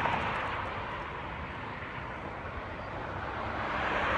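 Road traffic passing on the street: a steady wash of tyre and engine noise that dips in the middle and swells again near the end as a pickup truck comes by.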